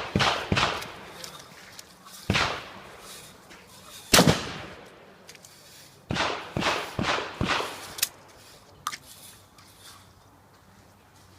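Shotgun firing a course of fire: two quick shots, then single shots about two seconds apart, then a fast run of five shots in about two seconds, each shot followed by a short echoing tail.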